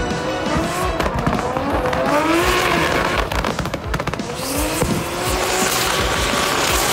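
Two drift cars sliding in tandem, engines revving up and down at high revs while their tyres squeal and skid on wet tarmac. A rapid crackle of exhaust pops comes about three seconds in.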